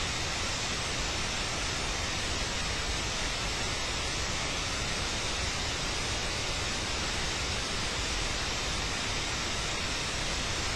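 A steady, even hiss with no distinct sounds standing out from it.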